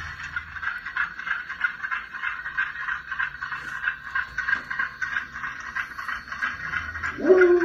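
Model steam locomotive and a string of short tank cars running along the layout track: a steady rattling whir of the motor and wheels on the rails. A short rising tone comes in near the end.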